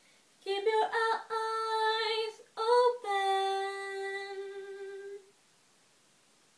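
A woman's voice singing unaccompanied: a few short held notes, then one long steady note of about two seconds that cuts off.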